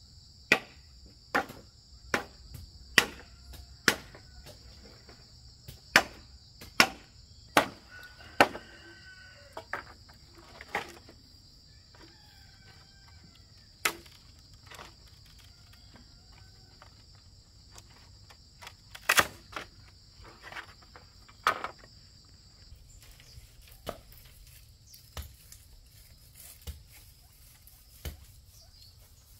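Sharp knocks of a blade chopping bamboo poles, about one a second for the first eight seconds, then scattered, over a steady high insect drone.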